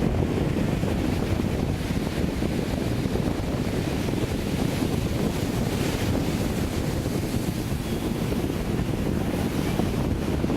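Sea surf washing continuously onto the beach, with wind buffeting the microphone into a steady low rumble; a brighter wash of hiss comes about six seconds in.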